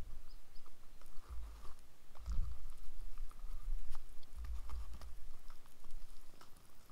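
Scattered light clicks and taps, with a few short low rumbles.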